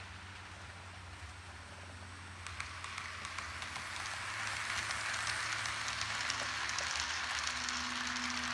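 Model freight train rolling past close by: the wheels rattle and click over the track, growing louder from about two and a half seconds in as the switcher locomotive and cars come past. A low steady hum runs underneath.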